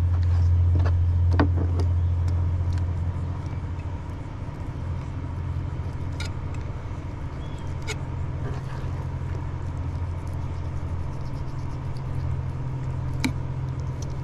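Steady low mechanical hum, louder for the first couple of seconds, with a few sharp taps of a fillet knife on a plastic cutting board.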